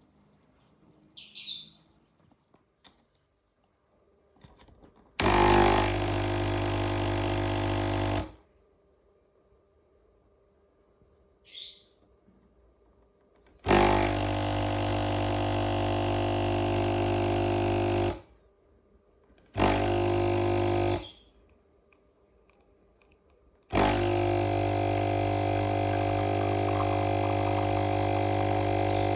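A cheap espresso machine's pump buzzing as an espresso shot extracts. It runs in four bursts that start and stop abruptly: about three seconds, about four seconds, a short second-and-a-half run, then a long steady run. A brief squeak comes before the first and second bursts.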